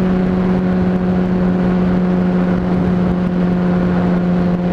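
Honda CBR600RR inline-four engine running at a steady speed while the motorcycle cruises, heard through a helmet-mounted microphone along with wind and road noise.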